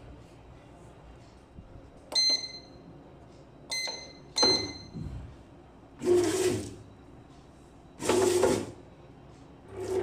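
Kenwood BM250 bread maker: three short electronic beeps from its control-panel buttons, then its kneading-paddle motor runs in two short bursts a couple of seconds apart and starts up again near the end, turning the dough for its final fold.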